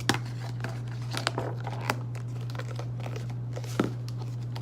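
Plastic slime containers being handled as slime is put back into them: scattered clicks and crinkles, a sharper click near the end, over a steady low hum.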